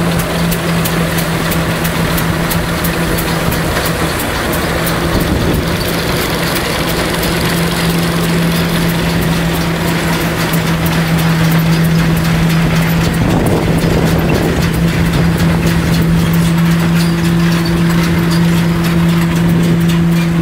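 Vintage belt-driven threshing mill running steadily under power from a tractor as sheaves are forked in: a loud, even mechanical hum over a wash of rustling noise, with faint regular clicking. A second, higher hum joins about two-thirds of the way through.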